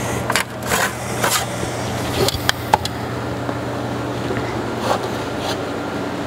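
Knocks, scrapes and clicks of a person climbing down out of a heavy truck's cab, bunched in the first three seconds with one more knock about five seconds in, over a steady low hum.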